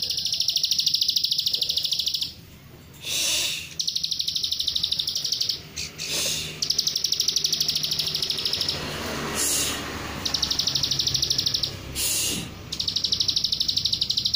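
Plain prinia (ciblek sawah) song in the rapid 'nembak rapet' style: fast buzzy trills of evenly repeated notes, about ten a second, in five bursts of roughly two seconds with short pauses between.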